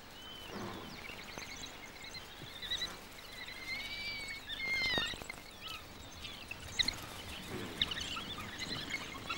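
A pack of African wild dogs giving many short, high-pitched chirping calls that overlap one another: their excited greeting of pack members returning with food. About five seconds in, one longer call bends downward.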